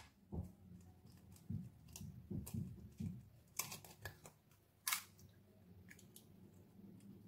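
An egg tapped and cracked against the rim of a ceramic bowl: a string of light taps and clicks, with two sharper cracks about three and a half and five seconds in as the shell breaks open.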